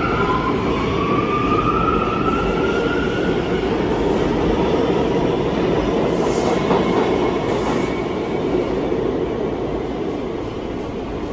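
R179 subway train accelerating: a motor whine rises in pitch over the first few seconds above the steady running noise of wheels on rail, with brief high wheel squeals near the middle. The noise eases off toward the end.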